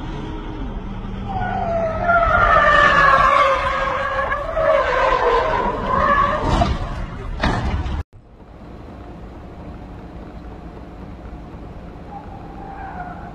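Car tyres squealing in long, wavering glides as a car skids across the road, followed by two sharp bangs less than a second apart. After a sudden cut, steady, low road noise takes over.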